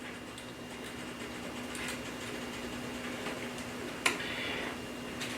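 Quiet kitchen background: a steady low hum with a few light clicks, and one sharp click about four seconds in followed by a brief rustle.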